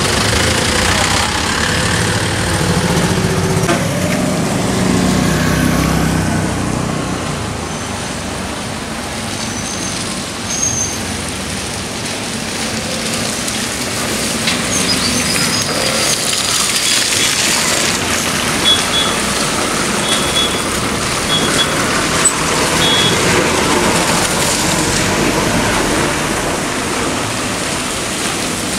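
Motor traffic crawling over a potholed road: a jeep's engine running close by, its pitch rising and falling over the first few seconds, then cars and buses passing slowly with steady engine and road noise.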